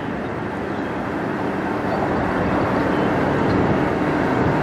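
Two Canadian National diesel locomotives heading a freight train, their engines running with a steady low drone that grows slowly louder as they approach.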